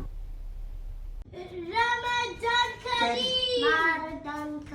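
A child singing a short tune in a high voice, with long held notes that rise and fall, starting about a second in.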